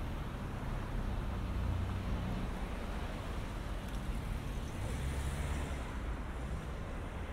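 City street traffic: cars driving through an intersection, a steady wash of engine and tyre noise that swells twice as vehicles pass close by.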